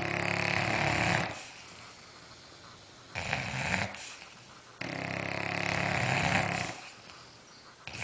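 A dog snoring in slow breaths: a long buzzing snore at the start, a short one about three seconds in, another long one from about five to nearly seven seconds, and the next beginning at the end.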